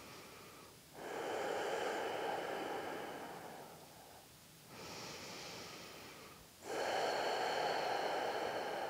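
A person breathing deeply and slowly, audible at close range: two long breath cycles, each a softer breath followed by a longer, louder one, the louder ones starting about a second in and just before seven seconds.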